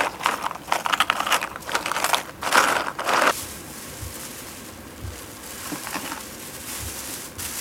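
Plastic bag crinkling and coarse salt rustling as salt is scattered over scallops in a tray, dense for about the first three seconds. Then it goes quiet apart from a few soft low knocks.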